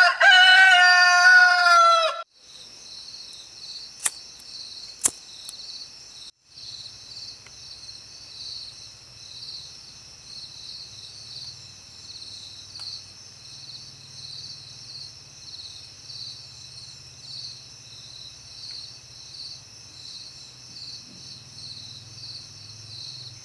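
A rooster crows once, loud, for about two seconds. After it comes a steady, pulsing high-pitched chorus of night insects. Two sharp clicks fall a few seconds in, and a low hum joins from about six seconds.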